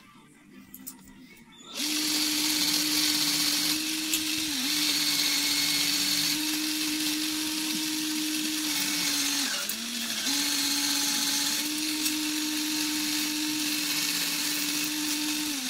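Cordless drill spinning a cloth buffing mop, starting about two seconds in and running at a steady speed while a snare drum tension rod is polished against it; twice its pitch sags briefly and recovers.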